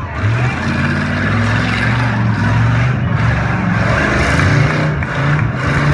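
Demolition derby cars' engines running loud and rough, their pitch rising and falling as they are revved.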